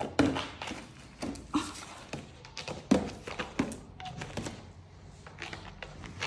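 Bichon Frise nosing into a woven wicker tissue box and shoving it about on a tile floor: a run of irregular knocks and scuffs, the loudest just after the start and about three seconds in.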